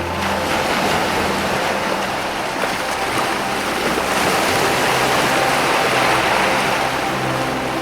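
Ocean waves washing against rocks: a steady rushing surf that swells a little after the start and builds to its fullest about three-quarters of the way through.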